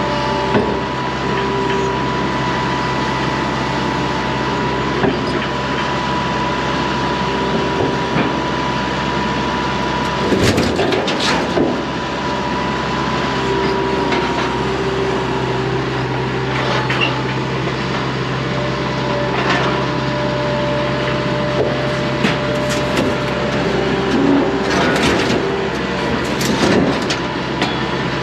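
An engine running steadily, with a few knocks and clatters about a third of the way in and again near the end.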